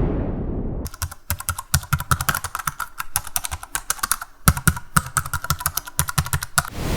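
Typing on a computer keyboard: a fast, irregular run of key clicks that starts about a second in and stops near the end. Before it, the tail of a deep boom dies away.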